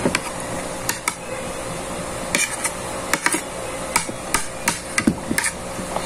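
Metal spoon clinking and scraping against a plate or bowl during a meal: a string of sharp, irregular clicks.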